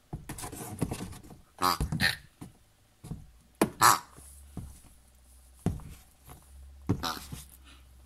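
A person voicing pig noises for plush toys: several short, pitched oinks and squeals with quiet gaps between. A steady low hum comes in about three seconds in.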